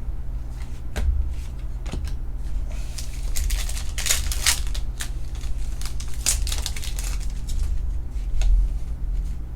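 Plastic and foil trading-card packaging crinkling and tearing in a string of short crackles, thickest in the middle, over a steady low hum.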